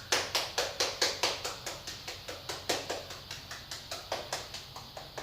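A rapid, even series of light sharp taps, about six a second, loudest at the start and growing fainter toward the end.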